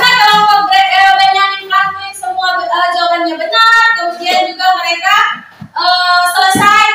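Children singing together: a high-pitched unaccompanied song of held notes with short breaks between phrases.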